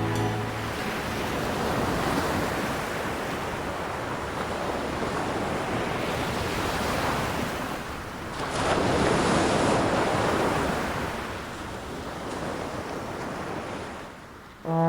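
Ocean surf: waves washing in and drawing back, swelling twice, the second swell the loudest, then fading away near the end.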